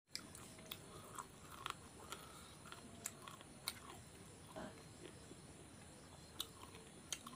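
Faint close-up eating sounds: a man chewing chicken curry and picking meat off the bones with his fingers, with scattered sharp little clicks about once a second.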